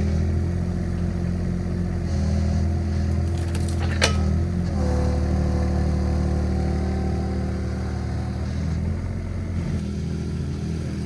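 Mini excavator engine running steadily, with one sharp metal clank about four seconds in.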